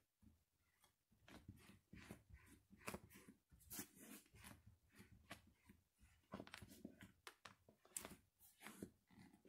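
Bare feet treading on a flattened loaf of white bread: faint, irregular crackling and crunching of the crushed bread, several crackles a second, with soft footfalls.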